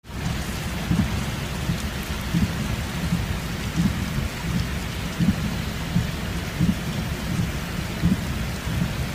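Steady, loud rush of water with a deep rumble and irregular low thumps underneath.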